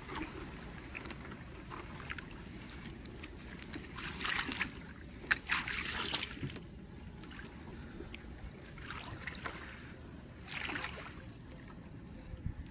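Shallow water splashing and sloshing against a wooden boat's hull as the boat is worked along muddy shallows, in several short bursts over a low steady rumble.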